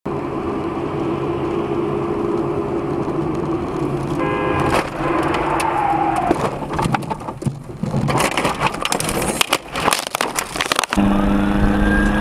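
Dashcam recording from inside a car on a wet road: steady engine and road noise, then from about four seconds in a run of hard knocks, crunches and cracking clatter lasting several seconds, typical of a collision. Near the end it changes abruptly to a steady engine hum.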